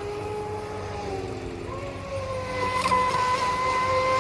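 Brushless TP Power 4050 2300 kV motor of an RC speedboat whining at full speed on a smaller propeller. Its pitch steps up about halfway in and then holds, and it grows louder toward the end.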